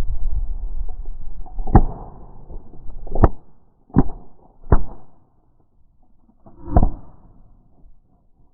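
Shotgun shots at incoming geese: five loud blasts in about five seconds, the first four in quick succession and the last, two seconds later, duller.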